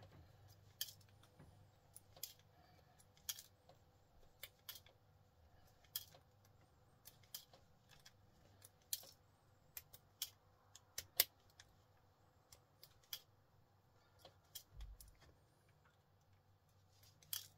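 Faint, scattered sharp clicks, roughly one a second: small metal pins being worked out of plastic computer cable connectors by hand.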